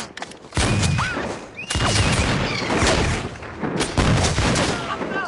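Flintlock musket fire in a battle: a ragged volley of many shots in quick succession, starting about half a second in.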